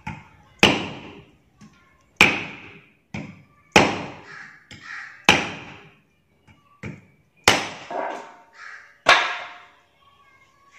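Meat cleaver chopping a cow's leg bone on a wooden stump block: six heavy chops about a second and a half apart, each a sharp knock that dies away over about half a second.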